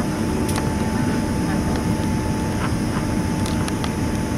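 Steady low rumble of a Boeing 767-300's engines and airframe heard from inside the cabin as it taxis, with a faint steady whine and a few light clicks.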